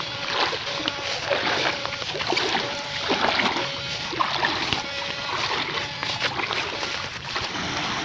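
Shallow water splashing and sloshing irregularly as a wader strides through knee-deep water and sweeps electrofishing poles through it. A faint high tone switches on and off now and then.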